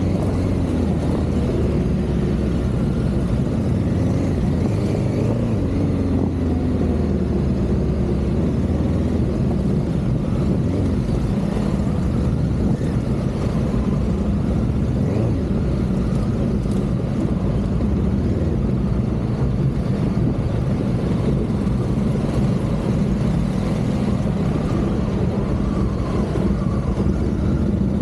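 Honda Africa Twin CRF1100's parallel-twin engine running steadily at low speed while the bike rides over a dirt track, its pitch wavering a little with the throttle.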